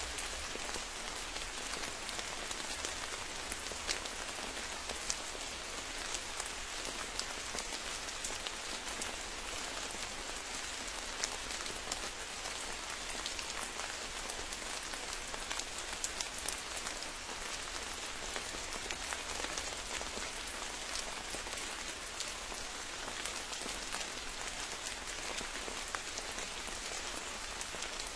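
Steady rain falling, an even hiss with frequent sharp ticks of single drops hitting close by.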